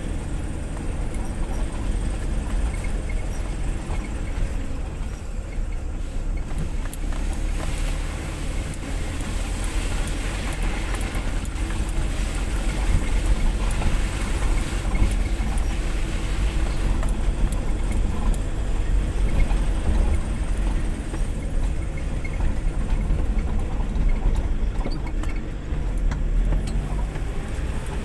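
A vehicle driving slowly along a rough dirt track, heard from inside the cab: a steady low rumble of engine and tyres, with small rattles and knocks from the bumpy ground.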